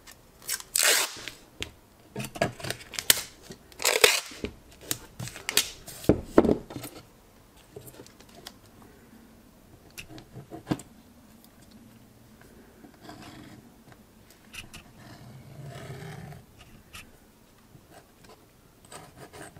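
Masking tape pulled off the roll in several loud rips and torn off as it is laid over a steel sheet, for about the first six seconds. After that come quieter scratches of a ballpoint pen tracing around a metal template on the tape.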